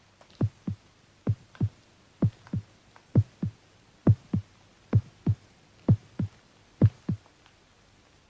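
Heartbeat sound effect: deep paired thumps, lub-dub, about once a second, eight beats in all, stopping near the end.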